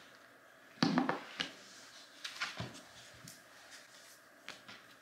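A few light knocks and clicks of a small toy animal being handled and set down on a tabletop, the loudest about a second in.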